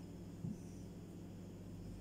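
A single soft, dull thud about half a second in as the wheel cutter is pressed through the date-filled dough roll onto the silicone mat on the counter, over a faint steady low hum.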